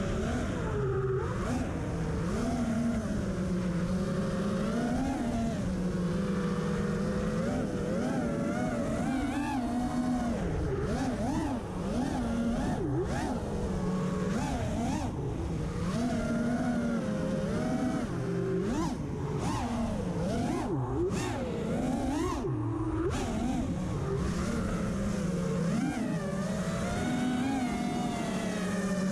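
FPV quadcopter's electric motors and propellers whining, the pitch swooping up and down over and over as the throttle changes, over a steady rush of air.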